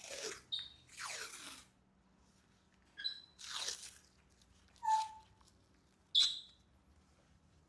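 Short scrapes and sharp metallic clinks with brief ringing, from working the number 1 piston out of a Mini N14 engine block.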